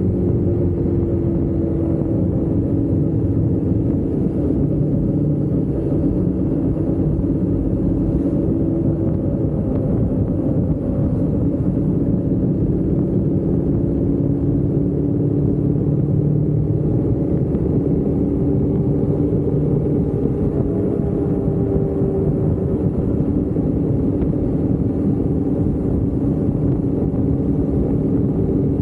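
Motorcycle engine running steadily at cruising speed, its pitch drifting gently up and down, over a continuous low rumble of wind and road noise.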